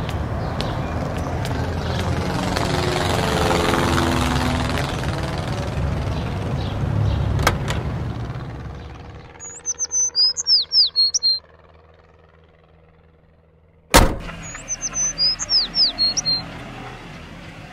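A car drives past, its noise swelling and then fading over the first several seconds. Then a bird calls in short runs of quick, high, falling chirps, repeated a few times, with a single sharp knock between two of the runs.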